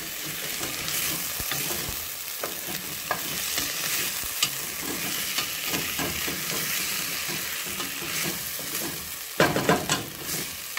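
Diced potato, onion and tomato sauce sizzling in a stainless steel pot as a wooden spoon stirs and scrapes through them, a steady hiss with small scraping clicks. A few sharp louder knocks come near the end.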